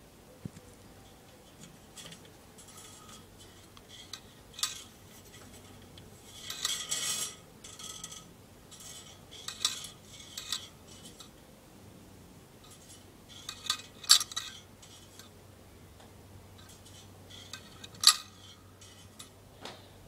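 Light metallic clicks and clinks from the brass-and-steel balance mechanism of a model Murday electric balance-wheel clock, irregularly spaced, with a short rattling run about seven seconds in and the sharpest clicks about fourteen and eighteen seconds in.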